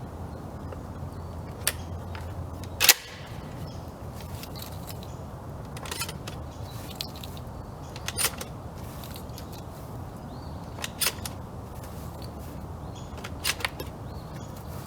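A single 12-gauge shotgun shot from a Maverick bullpup pump shotgun, about three seconds in. Several fainter sharp clicks or cracks follow, a few seconds apart.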